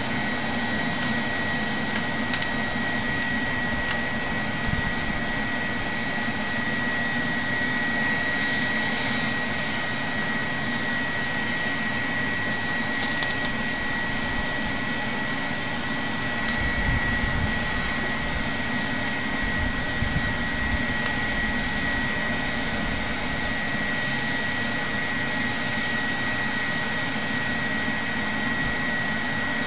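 Shop vacuum used as the air blower for a charcoal foundry furnace, running steadily as a rushing drone with a steady high whine. A few low thumps come a little past the middle.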